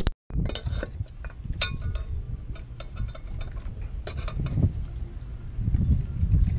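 Scattered small clicks and knocks from hands working a tow rope free at a boat's stern, over a steady low rumble. A brief drop-out to silence comes just after the start.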